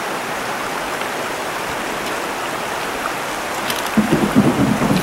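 Steady rush of river water, joined about four seconds in by rapid, uneven hoofbeats of a racking (singlefooting) horse stepping onto a wooden bridge deck.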